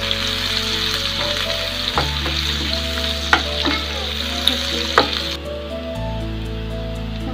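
Raw sliced onions sizzling in hot oil in a frying pan, stirred with a metal spatula that clicks sharply against the pan a couple of times. The sizzle softens about five seconds in.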